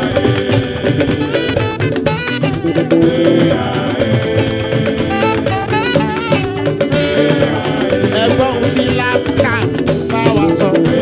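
Fuji music playing: a dense, steady percussion and drum groove with a wavering melodic lead over it, between sung lines.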